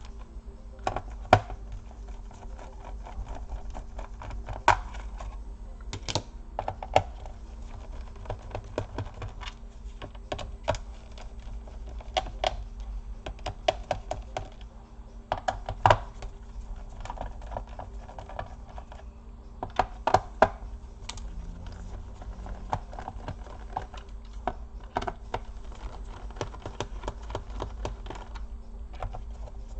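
Irregular clicks and taps of a small screwdriver, screws and plastic parts on the underside of an Acer Aspire 5738 laptop as its back screws and covers are removed, with a steady low hum underneath.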